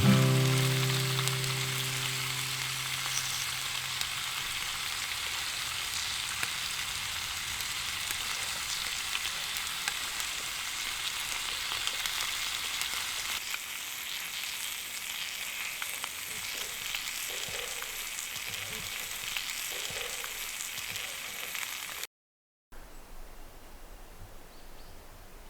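Food sizzling in a frying pan over a campfire: a steady frying hiss with small crackles. It cuts out briefly near the end and comes back fainter.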